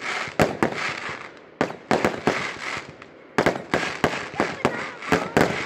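Aerial fireworks bursting in a rapid series of bangs and crackling pops. They ease off briefly about halfway, then a fresh volley of bangs starts.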